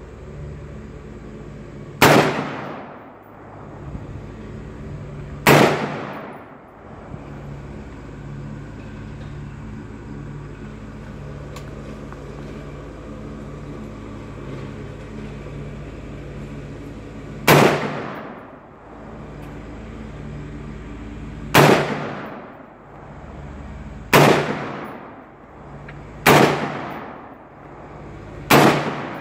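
Seven single shots from an AR-15-style rifle, fired at irregular intervals, each crack followed by an echo that fades over about a second, over a steady low hum.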